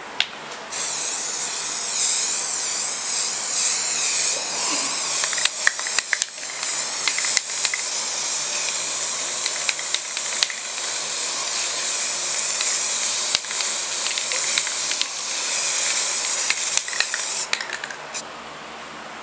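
Spray paint hissing out of a can in one long, nearly unbroken spray, starting just under a second in and stopping shortly before the end, with a few brief breaks where the nozzle is let off.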